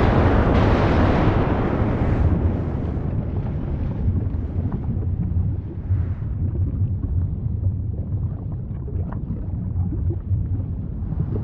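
Continuous deep rumble of an erupting volcano. A brighter roar fades after about two seconds into a duller rumble with occasional faint crackles.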